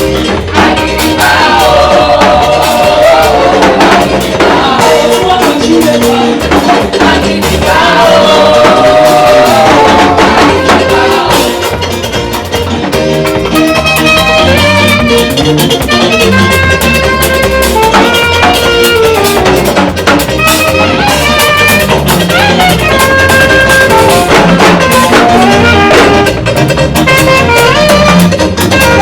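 Upbeat gospel praise music from a live band, with a drum kit keeping a lively dance beat under melody instruments.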